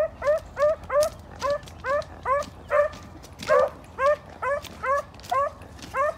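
Beagles giving tongue on a rabbit's scent trail, a steady run of short, hooked yelps about two a second, with one louder bark just past the middle.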